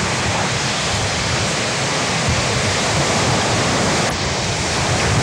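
Heavy surf breaking on a shingle beach: a steady, loud wash of waves.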